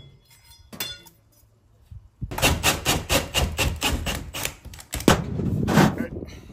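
Cordless drill spinning a hole saw through a corrugated steel wall panel, with a rapid clattering chatter that starts about two seconds in and stops near the end.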